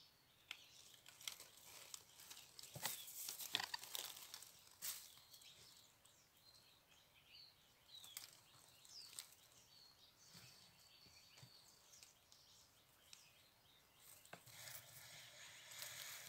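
Faint birds chirping in a tree, short high calls and one thin held whistle, with scattered clicks and rustles close to the microphone, thickest a few seconds in.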